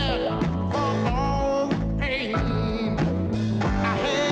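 Rock music with guitar and a wavering singing voice over a steady bass line.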